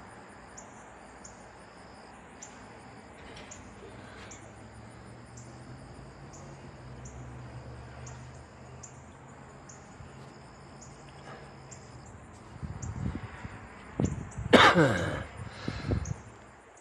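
Outdoor insects chirping faintly in a steady, evenly repeating high pattern, with a low drone that swells and fades in the middle. Near the end comes a loud burst of a man's voice.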